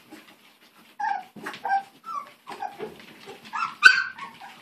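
Litter of young miniature beagle puppies whining, a string of short high calls starting about a second in, the loudest near the end.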